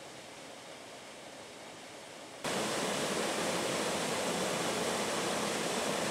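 Water running at a canal lock, then, about two and a half seconds in, an abruptly louder steady rush of water falling down a narrow concrete spillway into the pool below.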